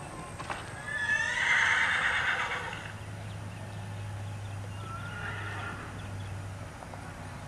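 A horse whinnies loudly for about a second and a half, starting about a second in with a rising note, followed by a fainter, shorter call around five seconds in.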